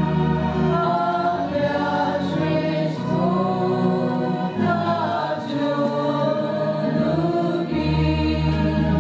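A choir singing a Christian hymn, with held low accompanying notes that drop out in the middle and return near the end.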